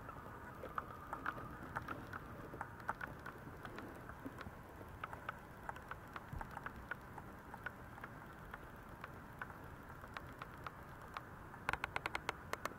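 Maltese puppies shuffling on a pet sheet: faint, scattered clicks and rustles, with a quick run of louder clicks near the end.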